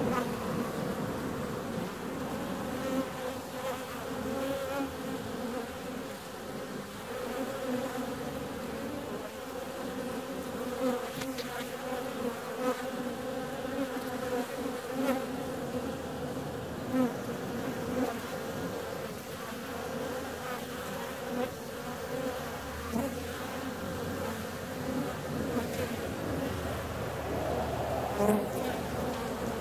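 Many honeybees flying in and out at a hive entrance: a steady buzzing hum, swelling briefly now and then as single bees pass close.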